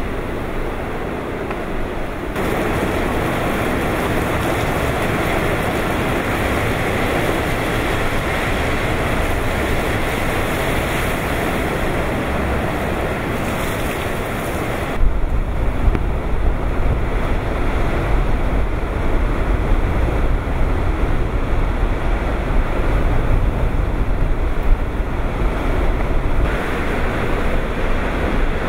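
Typhoon eyewall wind and driving rain blowing as a dense, steady hiss. Shot changes come about two seconds in and again about halfway. After the second one, heavy gusts buffet the microphone with a deep, uneven rumble.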